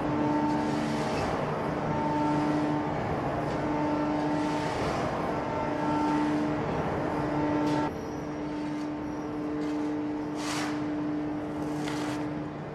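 Forge-shop machinery running: a loud mechanical drone with hum tones that cut in and out every second or two, easing a little about eight seconds in, with a few sharp metallic knocks near the end.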